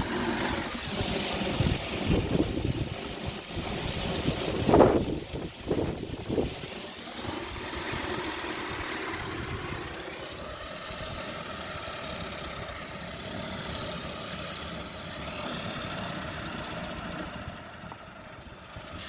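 Gale-force wind gusting and rumbling on the microphone, strongest in the first few seconds with a loud gust about five seconds in, then steadier, with wind turbines spinning and a faint whine.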